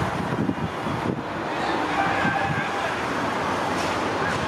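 Steady outdoor background noise: distant road traffic with wind buffeting the microphone.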